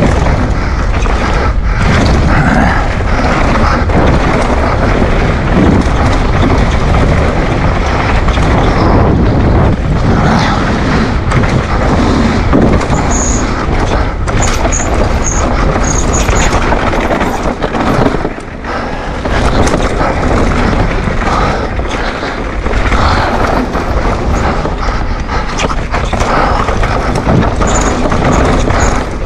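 Wind buffeting the microphone during a fast downhill mountain bike run, with the rattle and knocks of the bike and its tyres over a rough dirt trail.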